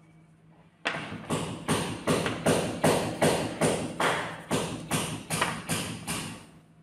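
Coloured pencil shading back and forth on paper: a quick scratchy stroke about two and a half times a second, starting about a second in and stopping shortly before the end.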